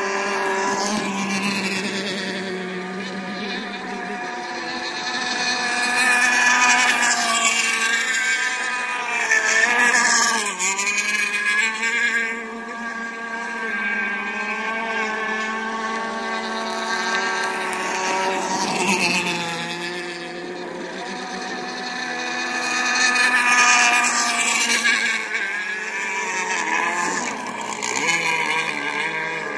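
Radio-controlled racing boats running flat out, several engines at once, their pitch sliding up and down as the boats pass. It gets louder around seven to ten seconds in and again near twenty-four seconds.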